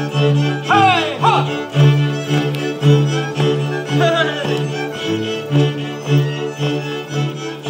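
Orawa highland folk string band playing a lively dance tune: fiddles over repeated, heavy bass notes from a bowed bass.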